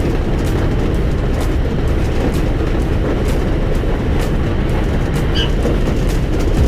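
Local train running, with a steady low rumble of wheels on rail and a click roughly once a second as the wheels cross rail joints. A brief high squeak comes about five seconds in.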